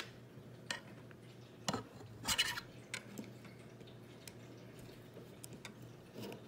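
Plastic Lego pieces clicking and clattering as they are handled and pressed onto a brick tower: scattered short clicks, the loudest a quick cluster about two and a half seconds in.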